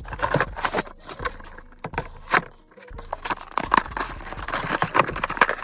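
A Hot Wheels monster truck blister pack being torn open by hand: clear plastic crinkling and cardboard backing ripping in a run of irregular crackles and tears. The packaging resists and the truck is hard to get out.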